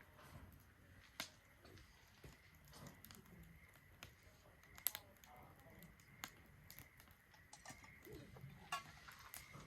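Wood fire burning in a Solo Stove Ranger fire pit, faintly crackling with scattered sharp pops and snaps.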